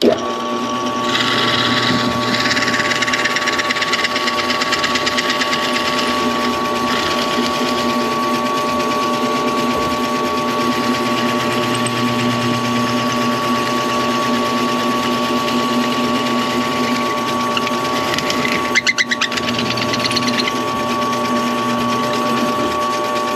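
Electric drill motor running steadily under load while boring the centre hole through an oak-and-antler pen blank, with a brief rattle about 19 seconds in.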